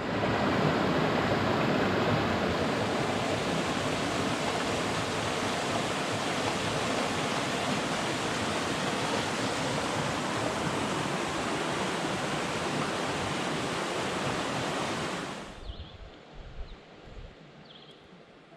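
Rushing water, a steady loud noise like rapids or falling water, that cuts off abruptly about three-quarters of the way through, leaving a much quieter background with a few faint small sounds.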